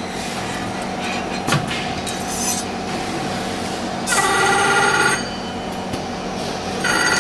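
Laser welding machine running with a steady hum, broken by a loud, evenly pitched buzz lasting about a second, about four seconds in, and another starting near the end.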